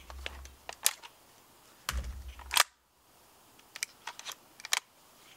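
Sharp mechanical clicks and clacks from a WE PMC AK gas blowback airsoft rifle being handled, scattered irregularly, with the loudest about a second in, just past halfway and near the end.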